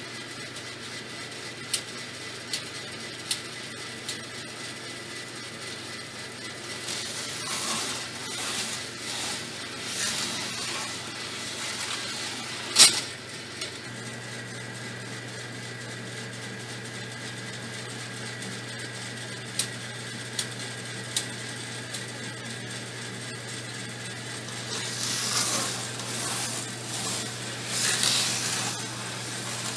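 CoasterDynamix model roller coaster running: trains rattling along the plastic track in two longer stretches, with scattered sharp clicks over a steady low hum that grows louder about halfway through.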